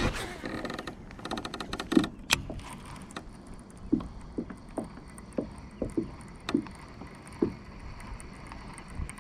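Fishing tackle and gear handled in a kayak: a quick run of rapid clicking in the first two seconds, then a series of light, sharp knocks every half second to a second.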